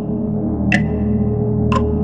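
Dark ambient music: a steady synthesizer drone of low held tones, with a short tick about once a second that alternates between a brighter and a duller click, like a clock ticking.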